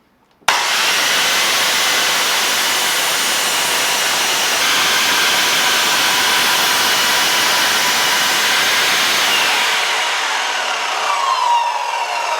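Miter saw starting abruptly and running at full speed while angle-cutting a spalted beech mallet head, its motor whine steady; near the end the whine falls in pitch as the blade spins down.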